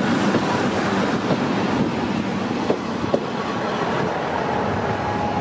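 ED75 electric locomotive and its Kaze-kko coaches rolling slowly past, with a steady rumble of wheels on rail. A few sharp wheel clicks come through it in the middle.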